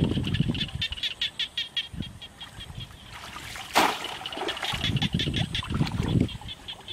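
Shallow muddy water sloshing and splashing as a bamboo plunge basket is pushed down through it to trap fish, with one sharp splash a little past halfway as the basket is jammed down, and rapid high chirping above.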